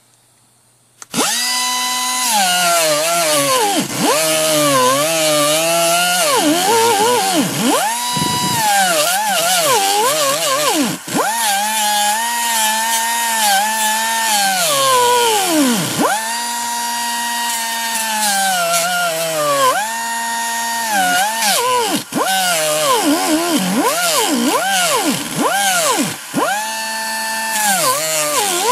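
Small hand-held grinder with a cut-off wheel cutting into the minivan's sheet-metal floor to lengthen a seat-bolt hole, starting about a second in. Its whine drops in pitch each time the wheel bites into the metal and climbs back when eased off, over and over.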